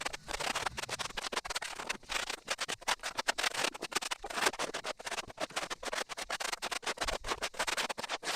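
Rapid, irregular scraping of a hand tool working packed dirt and sod off a concrete sidewalk, several strokes a second.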